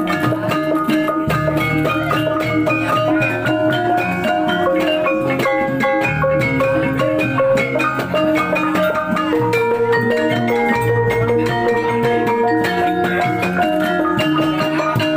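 Javanese bronze gamelan playing: rows of bonang kettle gongs struck in quick, stepping melodic patterns, over low hanging-gong tones held underneath that change every few seconds.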